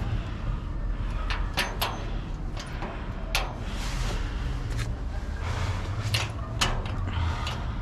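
Irregular clicks and scrapes of hands working at a door's edge and latch, over a steady low rumble.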